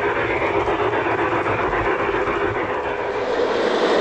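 G-scale model trains running on track: a steady rush and clatter of wheels on rail, heard from a car riding in the train, growing louder about three seconds in.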